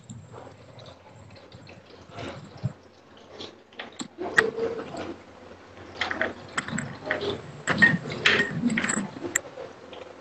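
Cooking sounds: a spoon scooping and scraping in a bowl of besan batter, with small pieces crackling as they deep-fry in a pan of oil. Irregular clicks and scrapes, busier from about four seconds in.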